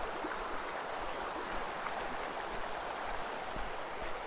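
A forest stream running steadily, an even rush of water.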